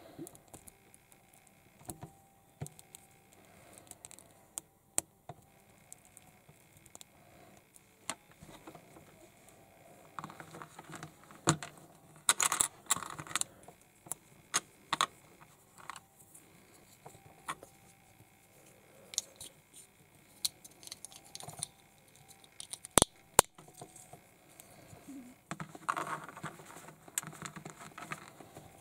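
Small plastic toy figure parts being handled: scattered light clicks and rattling, with busier spells of clattering and rustling around the middle and near the end, and two sharp clicks a little past two-thirds of the way.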